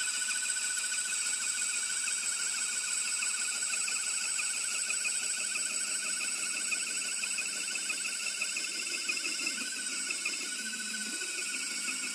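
Battery-powered Milwaukee portable band saw cutting through a steel plate, giving a steady high whine from the motor and blade.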